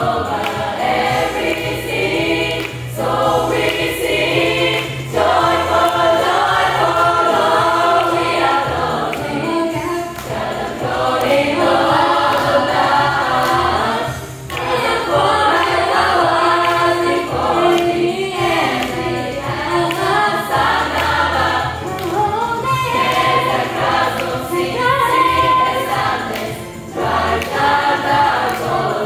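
Gospel choir of mixed voices singing, with a single female solo voice standing out above the choir through the second half.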